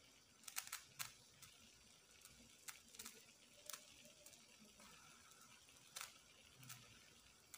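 Near silence: a faint hiss with a handful of faint, sharp crackles at irregular intervals, from the skins of an eggplant and a tomato charring on a wire mesh over a gas flame.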